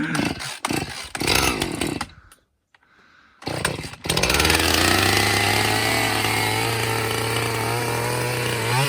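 Chainsaw starting to run about four seconds in and holding a steady pitch, with a brief rev near the end.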